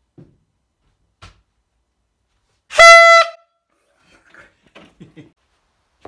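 Hand-held canned air horn gives one short, loud blast of about half a second, nearly three seconds in, on one steady pitch. There are two faint knocks before it and a few faint rustles after.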